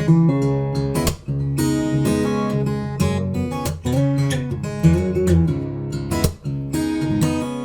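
Lava ME 3 carbon-fibre smart acoustic guitar strummed, chord after chord, with a few brief breaks between phrases.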